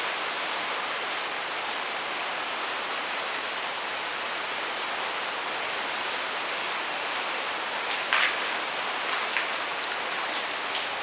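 A steady, even hiss, with a few short clicks or crackles about eight seconds in and again near the end. The source of the hiss is unexplained: it could be wind or the camera's own noise.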